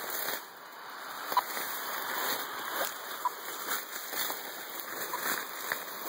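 Rustling and crunching of footsteps through dry leaf litter and brush while climbing a steep slope. Short, faint beeps from a radio-telemetry receiver come about every two seconds: the pulse of the rattlesnake's implanted transmitter.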